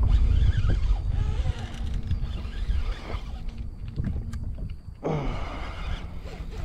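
Wind rumbling on the microphone over water noise around a fishing kayak, with a faint steady hum that stops about two-thirds of the way through.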